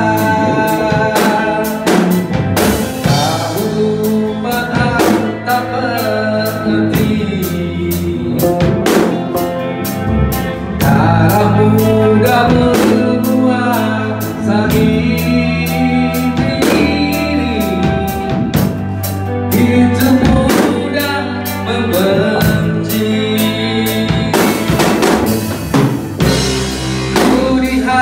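Rock band playing live: a Pearl drum kit keeping a steady beat under electric bass and guitar, with a singer's voice.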